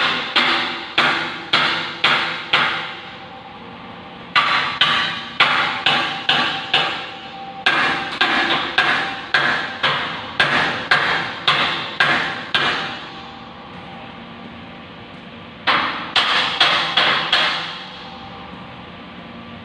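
Hammer striking a steel beam: sharp, ringing metal blows about two a second, in four runs with short pauses between them.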